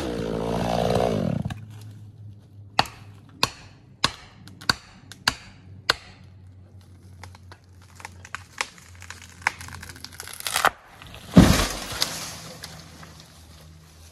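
A chainsaw winds down and falls quiet, then six sharp knocks follow about half a second apart. Wood and branches crackle and tear as a felled tree goes over, ending in a heavy crash as the trunk hits the ground, with branches settling after.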